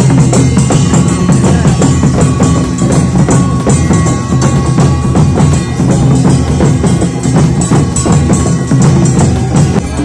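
Loud drum-led music: fast, dense drum strokes with a steady held note sounding above them.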